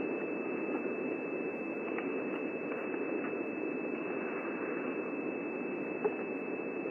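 Steady static hiss with a thin, steady high whine running through it, and a few faint soft clicks.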